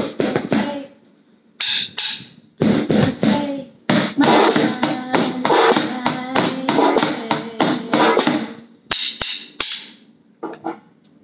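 Wooden drumsticks tapping out a quick rhythm, with a woman's voice over it. The tapping gives way to a few sharp clicks about nine seconds in and dies away near the end.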